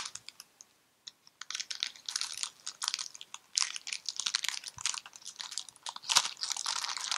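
Foil wrapper of a Pokémon TCG Evolutions booster pack torn open and crinkling in the hands. A short tear at the start, then almost continuous crackling and rustling from about a second in.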